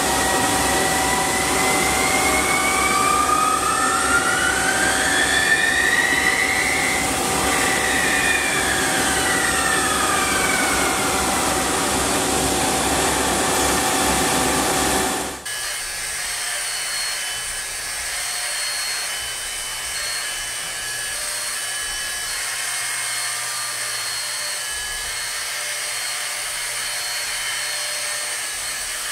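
CNC lathe turning a metal part: steady machine noise with a whine that rises and then falls in pitch over several seconds. About halfway through it cuts suddenly to a quieter CNC milling machine, its end mill cutting a metal block with a steady high whine.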